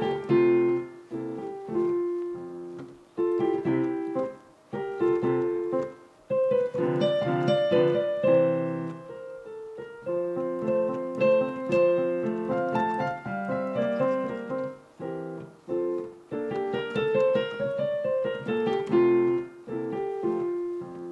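A piano being played by hand: a melody over changing chords, with short pauses between phrases.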